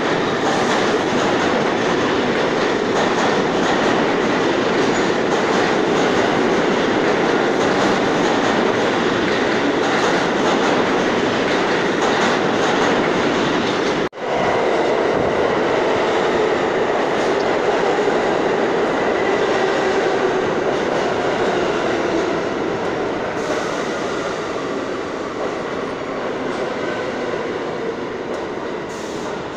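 New York City subway trains running through an underground station: a steady loud rumble and clatter of steel wheels on the rails. It cuts out for a moment about halfway through, then carries on as a train passes close at speed and slowly fades near the end.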